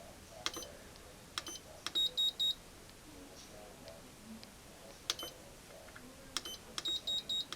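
Buttons on a Melodix chime unit's programmable timer being pressed: several sharp clicks, each with a short electronic beep, and twice a quick string of about four high beeps, about two seconds in and again near the end.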